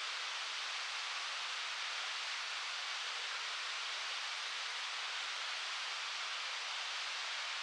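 Rarumanai Falls' water pouring down, a steady, even hiss of falling water.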